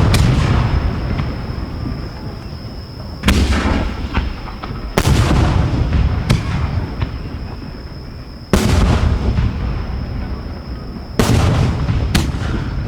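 Aerial firework shells going off in quick succession, heard from close to the mortar tubes: six sharp booms one to three seconds apart, each followed by a long rumbling echo.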